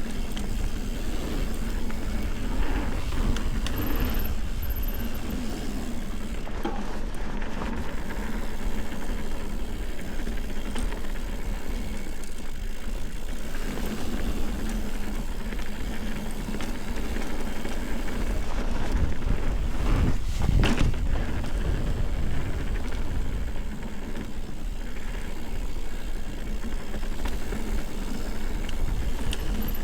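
Ibis Ripley mountain bike being ridden on a dirt trail: tyres rolling over the ground and the bike rattling, with wind buffeting the action camera's microphone. A louder jolt comes about twenty seconds in.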